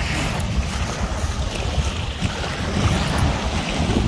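Wind buffeting the microphone in a steady low rumble, with small waves washing on a shell beach.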